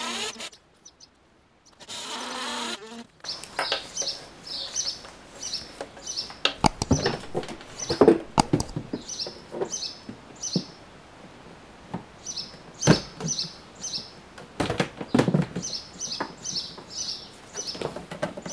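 A cordless drill whirs briefly as it drives a screw about two seconds in. This is followed by knocks and clunks as the plastic EV charger housing is handled and hung on its wall bracket, while small birds chirp repeatedly in the background.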